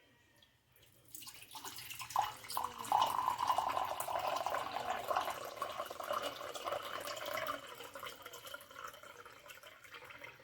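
Water pouring and splashing, starting about a second in and easing off over the last few seconds.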